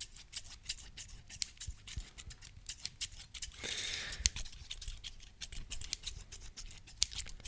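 Metal scissors snipping and clicking over and over, several sharp snips a second, with a longer soft hiss about three and a half seconds in.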